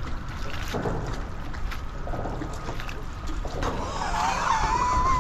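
Water lapping and sloshing around a small boat moored against bridge pilings, a steady low rush with a few small knocks. A wavering squeal starts in the last second and a half.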